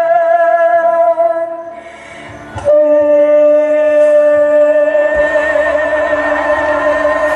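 Live female vocal holding long sustained notes with vibrato, amplified through a stage PA. After a brief drop and a click about two and a half seconds in, a second long note is held and grows fuller toward the end.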